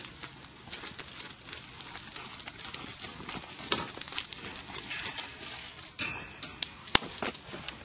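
Crinkling, crackling rustle as a black sheet is handled against a wire-mesh cage trap holding wild boars, with many small clicks and one sharp click about seven seconds in.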